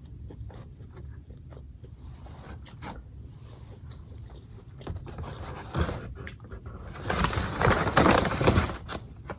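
A person chewing and biting fast food close to the microphone, with soft wet mouth clicks. About seven seconds in, a louder crackling, crunching stretch lasts a second and a half.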